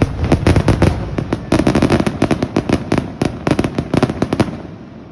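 Toy firework crackling off in a rapid, irregular string of sharp cracks and pops, several a second, which stops about four and a half seconds in.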